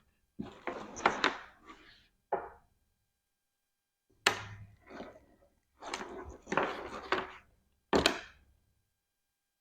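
Wiring harness parts and their packaging being handled: several bursts of rustling and clattering, each with a sharp knock, about a second in, at about four seconds and near eight seconds.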